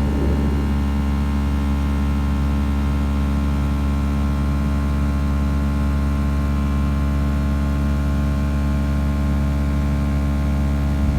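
Car engine running at a steady idle: a loud, even hum with a deep drone, cutting in and out abruptly.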